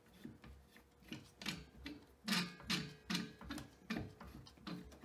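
SCBA air hose coupling being screwed by hand onto the cylinder valve: a run of light metallic clicks and knocks, about two or three a second.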